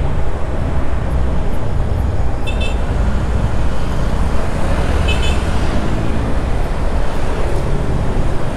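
A moving bus's engine running with a steady, heavy low rumble, mixed with wind and road noise. Two short high beeps come about two and a half and five seconds in.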